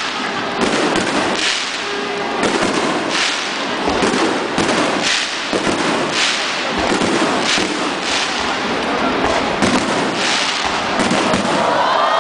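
Aerial fireworks shells bursting one after another, sharp bangs coming a little more than once a second.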